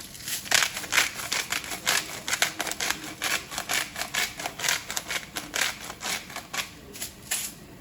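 Salt being dispensed over the livers in the pot: a quick, irregular run of dry clicks, about four to five a second.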